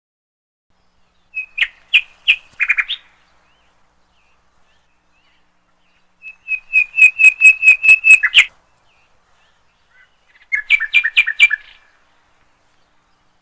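Bulbul singing in three short bursts of rapid, repeated chirping notes, the middle phrase about a second into the second half the longest and loudest, with pauses between phrases.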